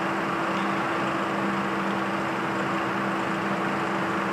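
Steady background noise: an even hiss with a constant low hum running under it, and no distinct events.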